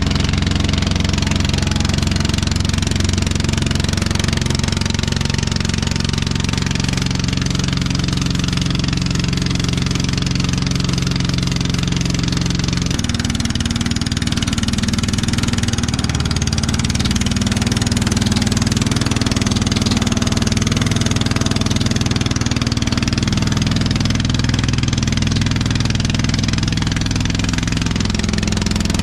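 Engine of a motorized outrigger boat running steadily while towing a banana boat, over the rush of water and wind; the engine's note changes about halfway through.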